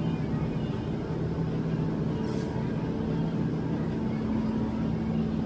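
Steady low hum of a grocery store's refrigerated freezer cases, over the general noise of the store.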